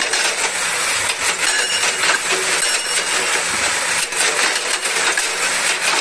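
Hydraulic rock breaker on a Komatsu PC200 excavator hammering stone: a rapid, steady metallic chatter of blows.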